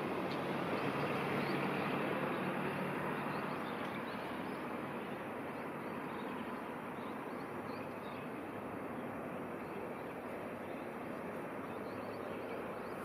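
EH200 electric locomotive and tank wagons running during shunting: a steady broad running noise with a low hum, easing slightly about three seconds in.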